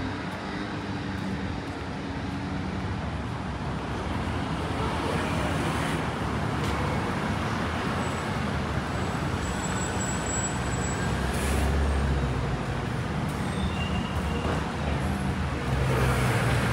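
Street traffic: motor vehicles passing, a steady noise that grows somewhat louder, with a deeper engine rumble about two-thirds of the way through.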